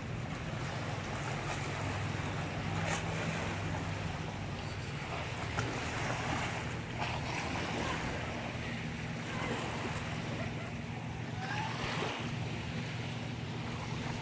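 Small sea waves lapping and washing onto a sandy beach by rocks, with wind buffeting the microphone. A low steady hum runs underneath.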